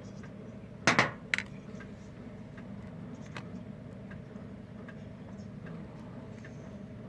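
A steady low hum with two sharp knocks about a second in, the first louder, then light scattered ticks.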